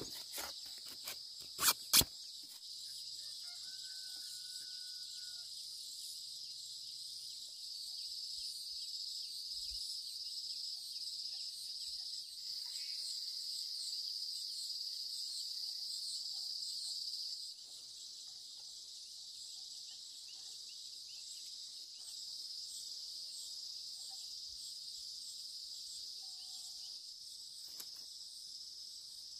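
Steady, high-pitched chorus of insects chirring, dropping a little in level about two-thirds of the way through. Two sharp knocks sound about two seconds in.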